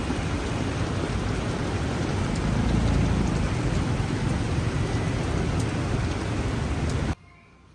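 Steady rain with a low rumble beneath it, cutting off suddenly about seven seconds in.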